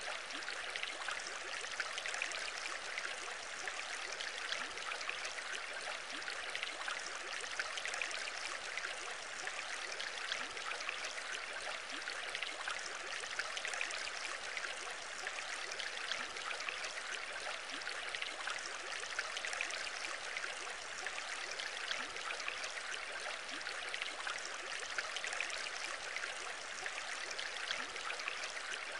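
Aquarium water bubbling and trickling steadily, from streams of air bubbles rising through the tank, with a fine crackle of bursting bubbles.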